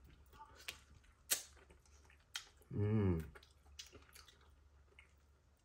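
Close-up chewing and gnawing on small bones of cooked squirrel meat: scattered soft clicks and crunches. A short voiced murmur comes about three seconds in.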